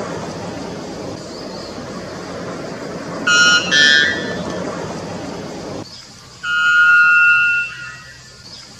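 White bellbird calling loudly: a quick pair of short notes about three seconds in, then a longer held call of about a second and a half near the end. A steady background noise stops abruptly about six seconds in.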